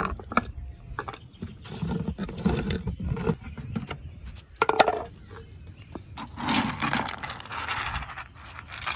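Plastic screw-top lid of a pet-food storage bin being twisted and lifted off, scraping and clicking, with a sharp knock near the middle. Then a plastic scoop digs into dry dog kibble, and the pellets rattle and pour.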